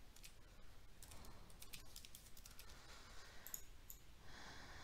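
Faint computer keyboard typing: a run of quick, light keystrokes as a word is typed.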